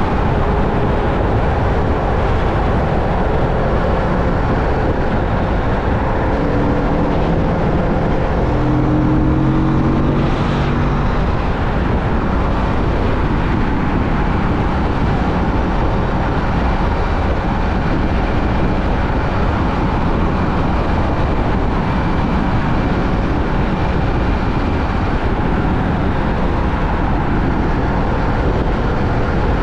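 Kawasaki Vulcan S 650's parallel-twin engine running under steady wind rush at riding speed, with a few short humming tones standing out about seven to eleven seconds in.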